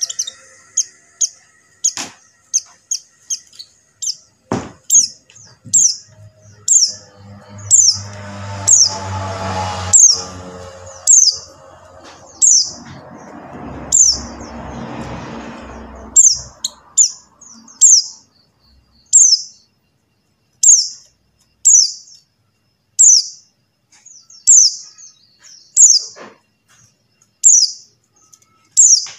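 Pleci buxtoni white-eye calling: short, high chirps that drop in pitch, repeated every second or so. A lower background noise swells in the middle and then fades.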